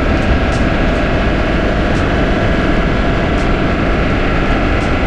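Humvee military ambulance's diesel V8 running under way, heard loud inside the cab as a steady low rumble with road noise. A faint tick comes about every second and a half.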